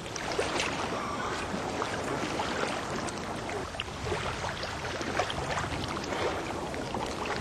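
Small waves lapping against shoreline rocks: a steady wash of water with many small splashes and clicks.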